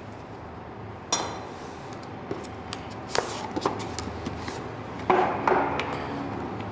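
Cardboard retail packaging being handled as a boxed action camera is taken out: a sharp knock about a second in, scattered taps and scrapes, and a louder rustling scrape about five seconds in.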